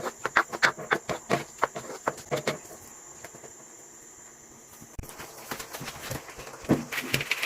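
A cooking utensil clattering against a pan while the noodle sauce is being stirred. There is a rapid run of knocks for about two and a half seconds, a lull, then more scattered knocks with a light hiss from about five seconds in.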